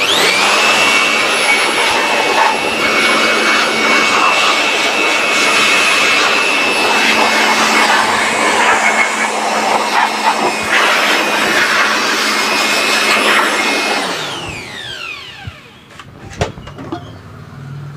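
Handheld electric air blower running steadily at full speed with a rushing whine, blowing dust out of a CRT TV chassis. About fourteen seconds in it is switched off and its whine falls in pitch as the motor spins down, followed by a few light knocks.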